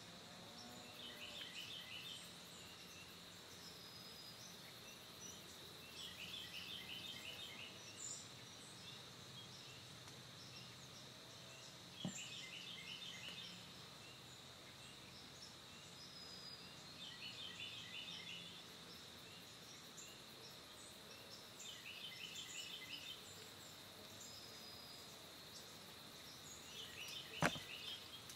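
Faint evening field ambience: a steady high-pitched insect drone, with a short chattering call of quick notes repeating about every five seconds. A single sharp click near the end.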